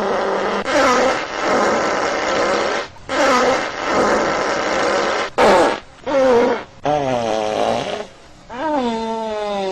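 A string of fart sound effects, about seven in a row with short breaks between them. Each is a raspy tone that wavers and slides in pitch, and the last one starts near the end and keeps going.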